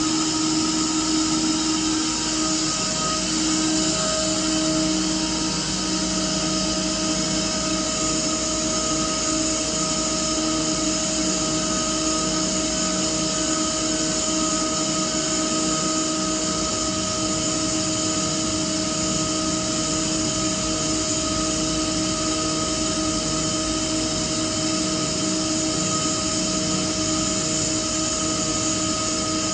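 Almig Variable 55 variable-speed oil-injected air compressor running steadily on load, a constant rushing noise with a steady whine of several pitches over it.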